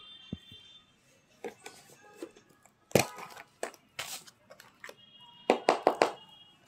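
Irregular clicks and short crackling rustles, loudest in a burst about three seconds in and a quick run of clicks near the end, with a faint high steady tone at times.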